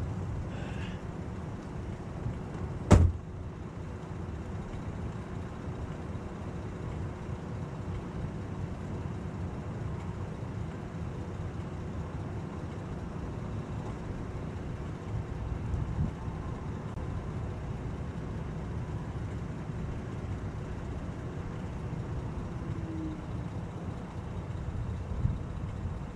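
Wind buffeting the microphone as a low, uneven rumble, with one sharp click about three seconds in and a couple of fainter knocks later.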